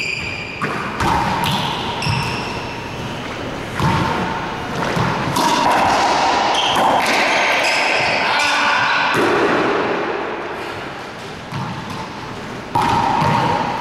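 Racquetball rally in an enclosed court: the hollow rubber ball cracks off racquets, walls and floor again and again, each hit echoing around the court, mixed with short high sneaker squeaks on the wooden floor.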